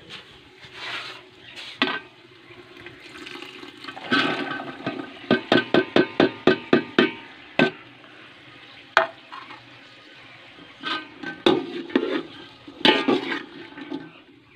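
Mixed vegetables hitting hot oil in a metal pot and sizzling, with a quick run of about nine clicks of a metal spatula against the plate and pot as they are pushed in. After that the spatula stirs and scrapes in the pot, knocking against it a few times.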